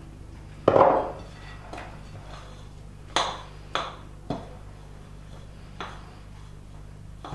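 A spoon knocking and clinking against a bowl while hot water is stirred into flour for pierogi dough: one louder clunk near the start, then four sharp clicks spread over the next few seconds.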